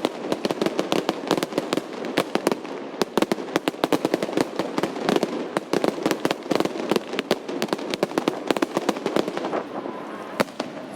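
A fireworks display: a dense, rapid barrage of sharp bangs and crackling pops, many a second, without let-up.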